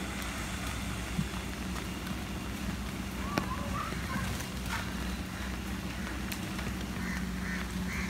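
A flock of spot-billed pelicans jostling and flapping, giving short calls that come in a quick repeated run near the end, with a few sharp clicks. A steady low hum runs underneath.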